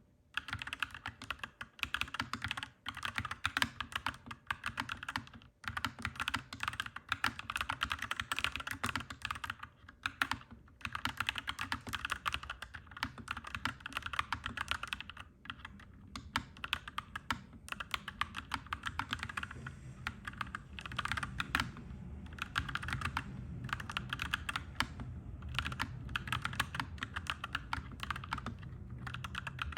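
Fast typing on a clacky mechanical keyboard, in bursts of rapid key clicks with short pauses between them. A low rumble swells underneath from about halfway through.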